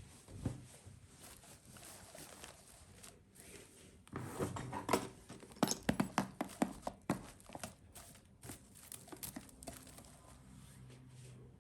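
Close handling noises: rustling with a run of light clicks and knocks, busiest from about four to seven seconds in.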